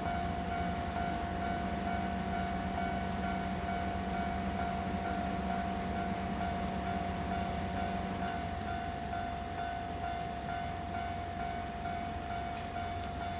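Japanese railroad crossing warning bell ringing steadily over the low rumble of a passing train. A hum in the rumble stops about eight seconds in.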